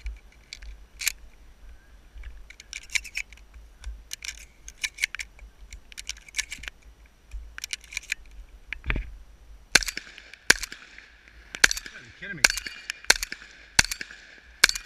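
Shotgun firing a quick string of about seven shots, roughly one every 0.7 to 1 s, over the last third. Before it come lighter scattered clicks and knocks from the shotgun being handled.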